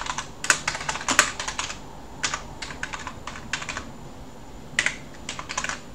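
Computer keyboard being typed on: quick runs of key clicks, with a brief pause about four seconds in.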